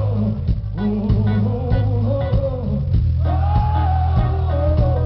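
Live rock band playing loudly: a singer holds long notes that slide downward, over electric guitar, a heavy steady bass and drum hits.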